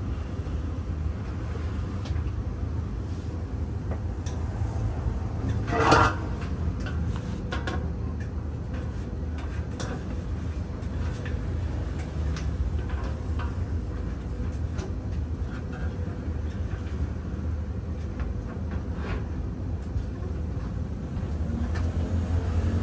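Sheet-metal clothes-dryer drum being lifted and shifted by hand: scattered knocks and clicks, with one loud squealing scrape about six seconds in, over a steady low hum that swells near the end.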